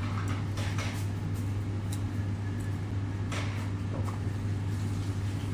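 Steady low hum, with a few faint clicks and knocks scattered through it.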